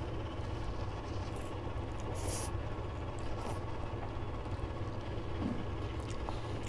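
Steady low background hum, with a few brief faint slurping and chewing noises as instant cup noodles are eaten with chopsticks.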